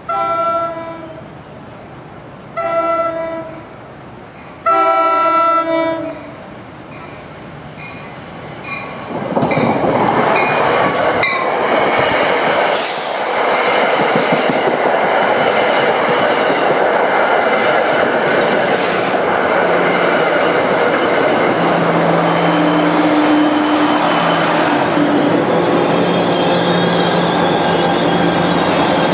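A push-pull commuter train's horn sounds three blasts from down the line: a long one, a short one, then a long one, the end of a grade-crossing signal. From about nine seconds the train arrives past the crossing, with the loud rumble and clatter of coaches and wheels. Near the end come wheel and brake squeal and the ALP-45DP dual-mode locomotive pushing at the rear.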